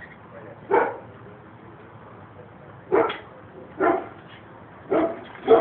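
A dog barking, single barks at uneven intervals: one, then a pause of about two seconds, then four more close together.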